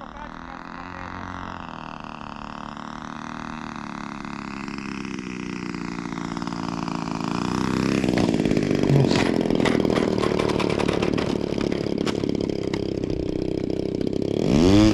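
Small gasoline engines of RC model aircraft in flight, among them the Phoenix Zero's single-cylinder 20 cc DLE 20 RA two-stroke, droning with the pitch wavering as the planes manoeuvre. The sound grows louder and the pitch glides as a plane passes about 8 seconds in, and near the end a plane passes close with its pitch swinging sharply up and down.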